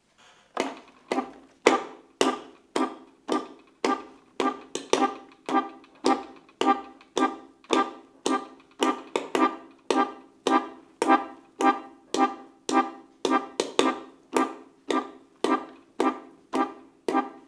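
Rhythmic hand percussion: sharp hand hits at a steady pace of about two a second, each ringing briefly, over a faint steady low tone.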